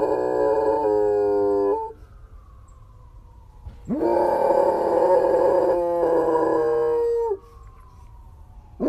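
German Shepherd howling in long, held howls. The first breaks off about two seconds in, a second runs from about four to seven seconds, and a third begins at the very end.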